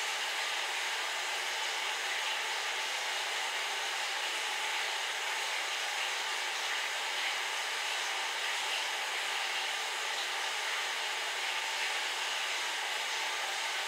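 A steady, even hiss, like air rushing from a fan, unchanged throughout.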